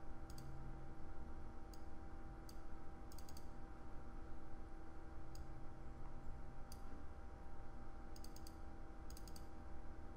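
Computer mouse clicking as folders in a software dialog are expanded and items picked: single clicks and quick double and triple clicks every second or so, over a steady low hum.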